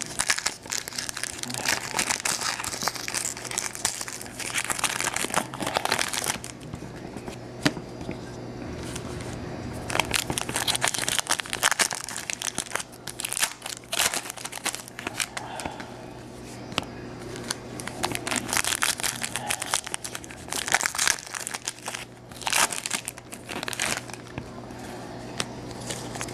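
Foil trading-card pack wrappers of Donruss Threads football cards crinkling and being torn open by hand, with the cards handled, in irregular bursts over a low steady hum.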